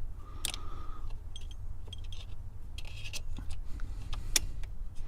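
Scattered small clicks and light rattles of hands, screws and parts being worked on an ignition switch, over a steady low rumble.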